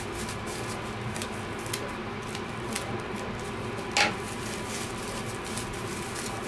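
Scissors snipping yarn, trimming uneven strands off a pom-pom in a series of short, scattered snips, with one louder click about four seconds in.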